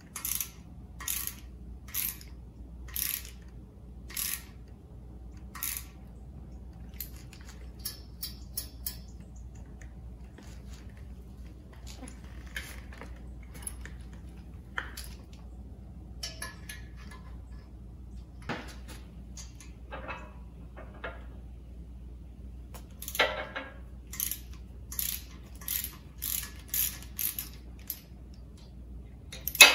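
Hand ratchet clicking in short runs as it turns a tap or bolt in a stuck threaded oil galley plug of a Chevrolet 327 small-block engine block. The clicks come about once a second at first, then scattered, then about twice a second near the end, where a sharp metal knock is the loudest sound.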